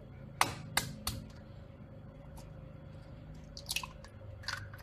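Eggs being cracked and their shells handled over a bowl: three sharp cracking clicks in the first second or so, then a few lighter taps and crunches near the end.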